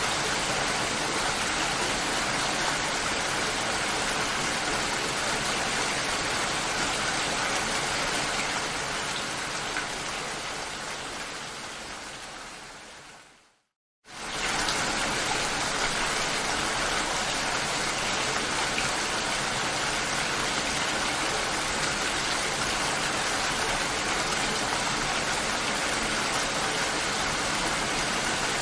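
Steady rainfall, an even hiss of falling rain. About halfway through it fades away to silence for half a second, then swells back in quickly and runs steady again.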